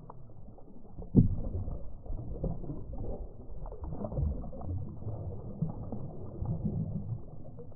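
Muffled water sloshing and splashing in a stock-tank duck pond as ducks paddle and dabble, with many small knocks and one sharp knock about a second in.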